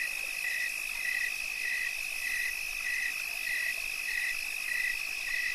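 Night insect chorus: a steady high trill, with a second caller pulsing evenly a little under twice a second.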